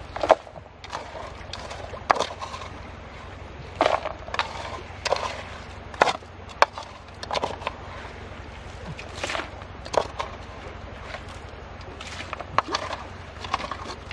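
Wet stony gravel being scraped and scooped by hand with a small tool. Stones clatter and knock at irregular intervals, one or two a second, over a steady low hum.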